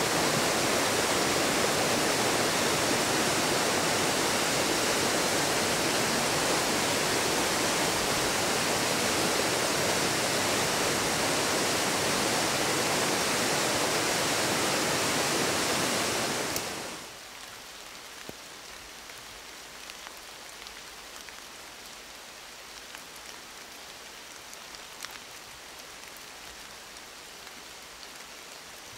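River rapids rushing through a narrow rock gorge: a loud, steady roar of water. Over halfway through it drops off sharply to a much quieter wash with scattered faint ticks.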